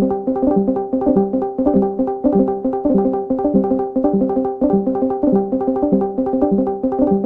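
Discord's voice-channel join and leave chimes, short two-note tones stepping up and down in pitch, repeated rapidly several times a second and overlapping without pause.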